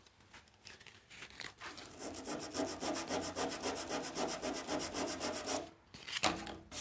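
Sandpaper scraping on a steel body panel of a pickup bed in quick, even back-and-forth strokes, sanding the spot to prep it for body filler. The sanding starts about two seconds in and stops abruptly near the end.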